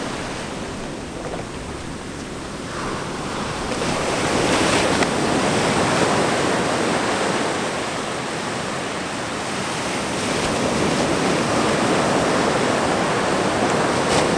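Ocean surf breaking and washing up a sandy beach, a steady rush of water that swells and eases as the waves come in.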